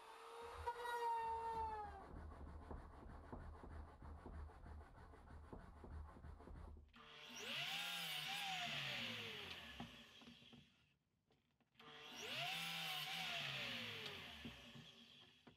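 Sliding miter saw making two cuts in wood, a few seconds apart; each time the motor starts with a whine, cuts through, and winds down. Before them, a small handheld router runs briefly and spins down.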